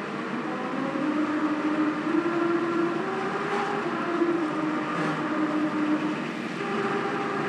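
Car tyres running over the grooved asphalt of a Japanese Melody Road, the grooves' vibration sounding a slow tune of held notes that step in pitch about every second, over the rumble of the road, heard from inside the car.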